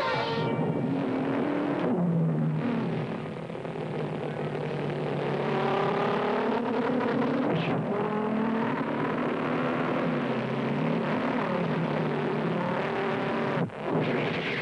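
Revving engine sound whose pitch swoops up and down again and again. It cuts out for a moment near the end.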